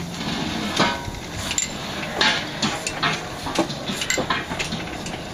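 Narrow-gauge Baldwin 4-6-0T steam locomotive No. 778 moving off slowly, with irregular metallic clanks and knocks from its running gear and wheels over the track.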